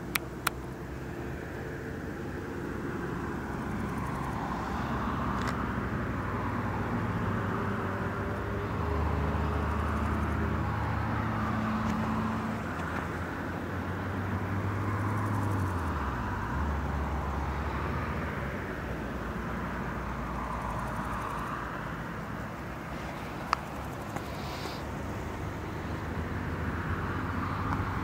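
Outdoor ambience dominated by a distant motor vehicle's engine hum, whose pitch drops about halfway through as it passes or changes speed, over a steady hiss. Two sharp clicks, one just after the start and one near the end.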